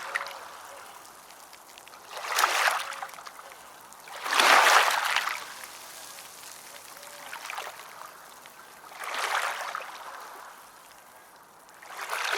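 Moving water: a rush of water swells and fades about every two to three seconds, with a quieter steady trickle between the surges.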